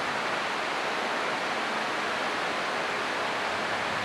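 Steady, even hiss of background noise, with no bells, strikes or other events in it.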